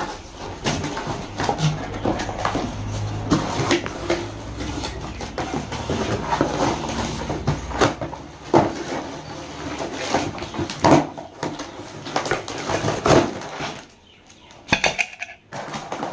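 Cardboard carton and cardboard packing inserts being handled and pulled apart: irregular rustling, scraping and knocks, with a short lull near the end.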